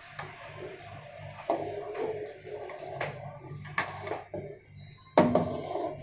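Metal wok spatula stirring egg into simmering soup, knocking and scraping against the side of the wok a few times, with the loudest clang about five seconds in.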